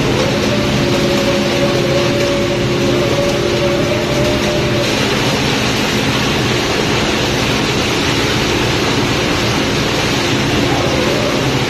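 Water and fish rushing down a stainless steel chute into a fish hold, a steady wash of noise, over the loud hum of a ship's machinery. A steady tone in the hum cuts off about five seconds in.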